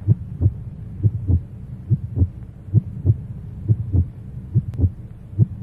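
Heartbeat sound effect: steady low double thumps, lub-dub, a little over one a second.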